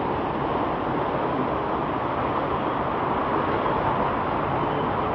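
Flooded-street ambience: a steady, even rushing noise of water flowing along a waterlogged road, with no distinct knocks or horns.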